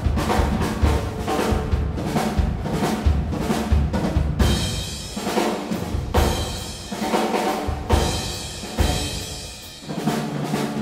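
Brass band with percussion playing a loud, drum-driven passage: repeated timpani and drum strikes, joined about halfway by held brass chords.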